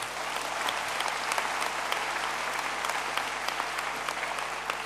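Audience applauding: a dense, steady patter of many handclaps that begins to thin out near the end.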